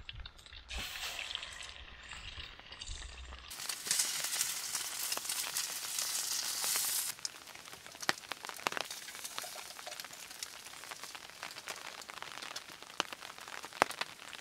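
Moistened fine cornmeal sizzling in hot oil in a pan as it is stirred, with sharp crackles and pops throughout. The sizzle swells loudest from about four to seven seconds in, then settles back to a steadier fry.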